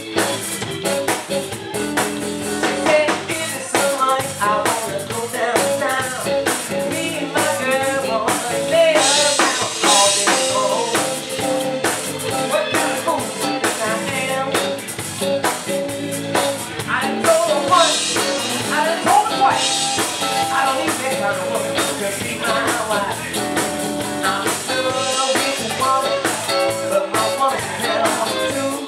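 Live Chicago-style blues band playing: electric guitar lines with bent notes over bass and a drum kit, with cymbal crashes now and then.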